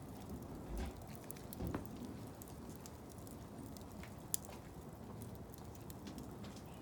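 Wood blocks burning in a fire basket, crackling with scattered small pops and one sharper pop about four seconds in, plus a couple of soft low thumps in the first two seconds.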